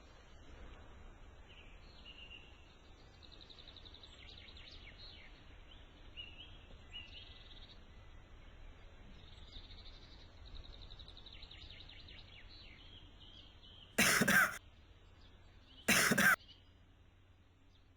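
Birds chirping and trilling faintly over a low background hum, then a person coughs twice, about two seconds apart, near the end.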